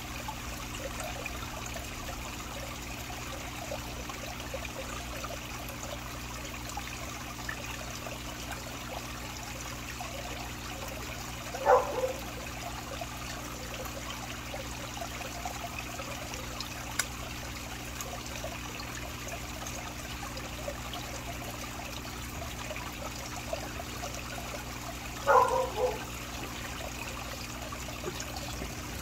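Water trickling steadily into a garden pond. Twice, well apart, a brief louder splash-like sound rises above the trickle, the second a quick double.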